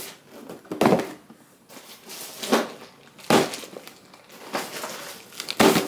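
Cardboard parcel boxes and plastic mailer satchels being stacked and handled: about four separate thumps and rustles, the loudest about a second in and near the end, with softer rustling of packaging between.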